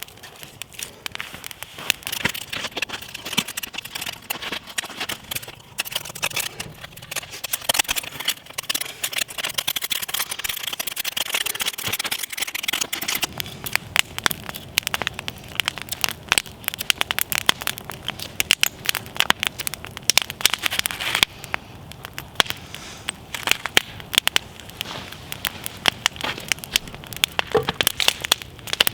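Campfire crackling, with many sharp irregular pops over a steady hiss during roughly the first half.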